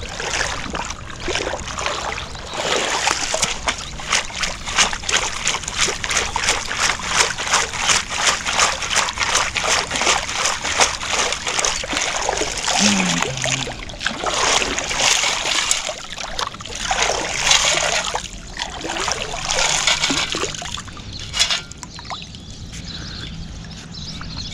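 A perforated stainless-steel sand scoop being shaken in shallow lake water to sift the sand out: water sloshing and splashing through the holes, with a fast rattling of the scoop's load for the first half, then several slower swishes and a single sharp clack near the end.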